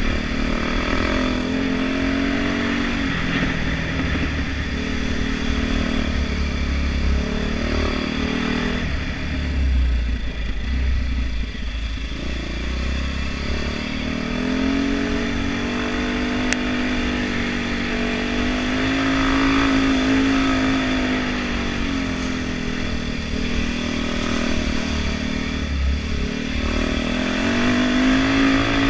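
Dirt bike engine running under changing throttle, its pitch rising and falling over a few seconds at a time as the bike accelerates and eases off along the trail.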